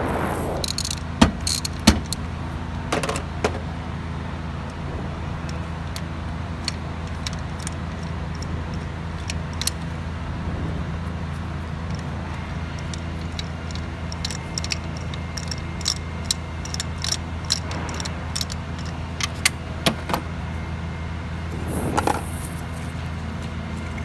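Ratchet and socket clicking, with metal tools clinking, as spark plugs are unscrewed from the cylinder head. A steady low hum runs underneath.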